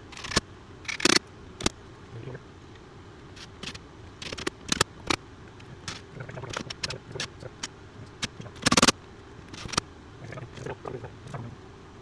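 Irregular metallic clicks, clinks and rattles of tools and door-latch hardware being handled, with louder clatters about a second in and near nine seconds.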